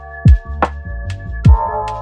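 Background music: a mellow electronic beat with deep kick drums about a second apart, crisp percussion clicks between them, and held chords.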